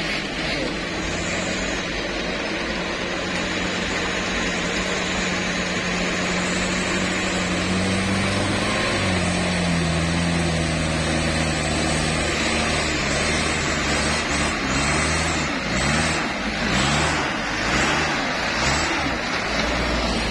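Engine of a loaded palm-fruit truck pulling up a soft, muddy climb, growing louder as it comes closer. Its note steps about halfway through, then rises and dips repeatedly in the last few seconds as it passes close.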